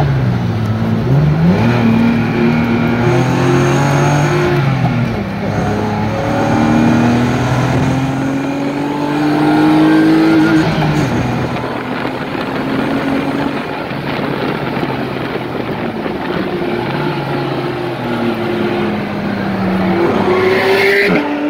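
BMW E30's M50 straight-six engine heard from inside the cabin, revving up through the gears under hard acceleration. Its pitch drops at a gear change about a second in and another about five seconds in, then climbs for several seconds. It eases off to lower, steadier revs after about ten seconds and climbs again near the end.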